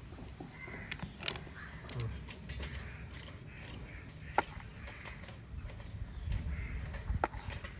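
Crows cawing in the background, a call every second or so, with a few sharp clicks and knocks mixed in.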